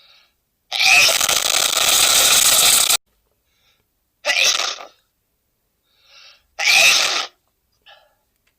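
A man sneezing three times: a long, drawn-out sneeze about a second in, then two shorter sneezes a couple of seconds apart.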